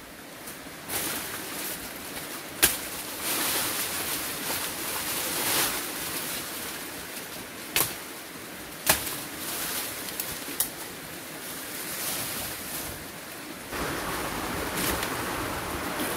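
Banana plant leaves and stems rustling and thrashing, with several sharp cracks, as a wild red-flowered banana plant is pulled and cut to bring down its fruit bunch. The rustling swells and fades, and grows louder again near the end.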